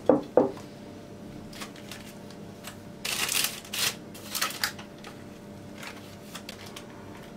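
Silicone spatula spreading thick sponge-cake batter in a parchment-lined glass baking dish: soft scraping and parchment paper rustling, loudest about three to four seconds in. Two sharp knocks right at the start.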